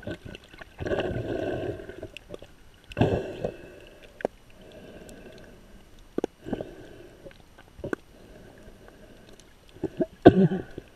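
Muffled underwater water noise heard through a GoPro's waterproof housing: swishing surges of moving water about a second in, again around three seconds and near the end, with scattered sharp clicks between them.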